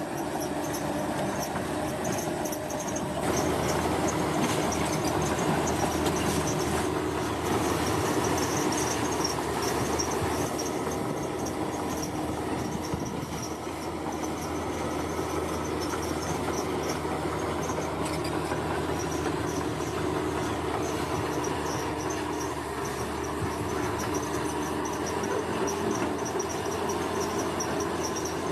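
Engine of a piece of heavy construction machinery running steadily, a little louder from about three seconds in, with insects chirping in a fast pulsing trill.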